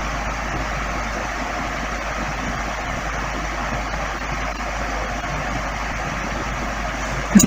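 A steady rushing background noise over a low hum, with one sharp knock near the end.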